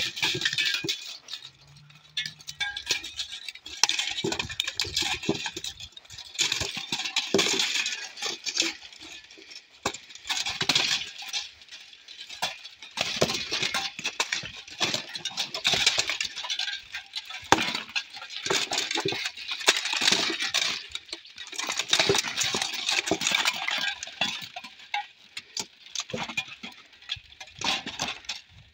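Steel plate armour and weapons clanking and clinking as two armoured fighters strike and grapple: a fast, irregular run of sharp metallic knocks.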